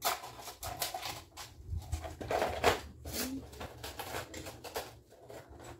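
Small plastic craft storage boxes and bins being handled, a run of irregular clicks, knocks and rattles as lids open and the contents shift.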